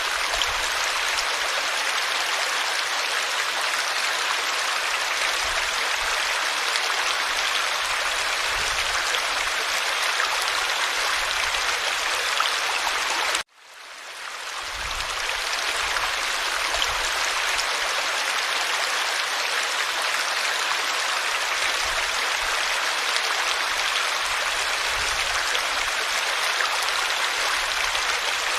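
Forest stream flowing steadily. About halfway through, the sound cuts out suddenly and fades back in over a second or two.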